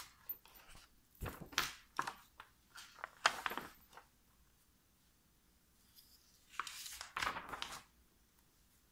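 Pages of a paperback picture book being turned by hand: a cluster of paper rustles and light taps over the first few seconds, a pause, then another page turn about seven seconds in.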